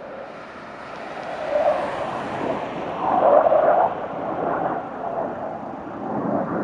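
Jet engine noise from a formation of an F-22 Raptor, an F-35A and an F-86 Sabre flying past. It is a rough, unpitched rumble that builds from about a second in, is loudest around the middle and wavers in level.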